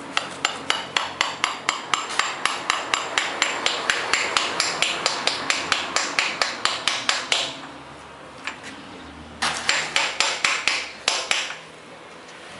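Hammer tapping on a 38 mm socket to drive a new camshaft oil seal into a Chevrolet Corsa 1.0 8V cylinder head. A long run of quick, even taps, about four a second, lasts some seven seconds, then a pause and a shorter run of taps.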